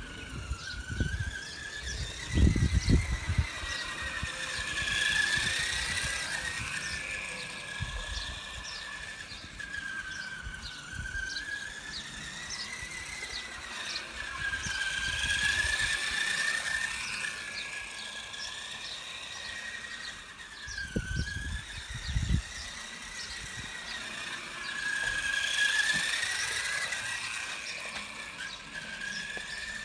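Electric motor and gear whine of a Donkey Car, a small RC model car, driving laps with its throttle set by the autopilot; the pitch wavers up and down as its speed changes and the whine swells about every ten seconds as the car passes close. Two brief bursts of low rumble stand out as the loudest moments.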